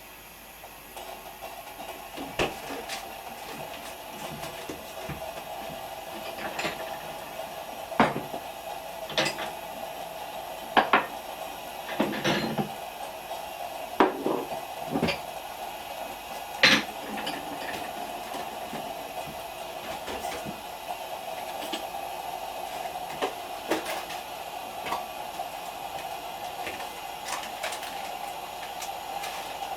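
Dishes and utensils being handled: scattered clinks and knocks, thickest in the first half, over a steady hum.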